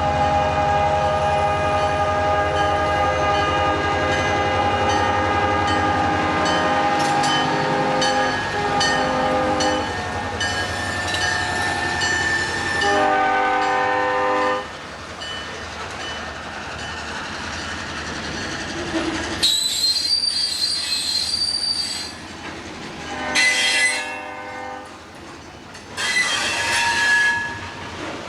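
Diesel locomotive working during switching, its engine running under steady tones for the first ten seconds. A short horn blast sounds about halfway through and another about two-thirds in, with bursts of high wheel squeal from the cars in between and near the end.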